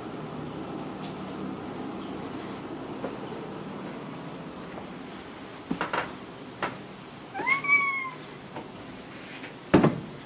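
A domestic cat meows once, a short call that rises and then levels off, about seven and a half seconds in. Near the end comes a loud thump as the cat lands on the floor after jumping down, with a few lighter knocks before it.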